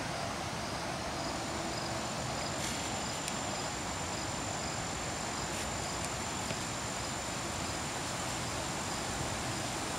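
Insects singing: a steady high-pitched trill starting about a second in, and a quieter short chirp repeating about every two-thirds of a second, over a steady even hiss.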